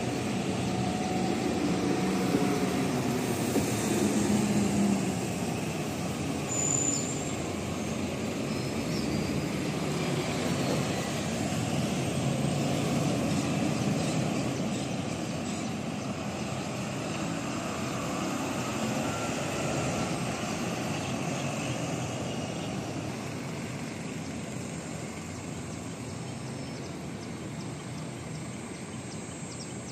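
Road traffic with diesel buses passing: a steady rumble, loudest in the first few seconds and easing off toward the end.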